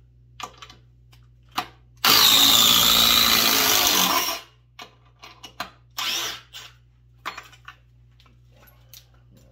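Milwaukee M18 Fuel Gen 3 impact driver (2853) driving a long screw down into stacked wooden boards. It runs loud and continuous for about two seconds and cuts off. Short clicks of the tool being handled come before and after it, and there is a brief burst of the tool again about six seconds in.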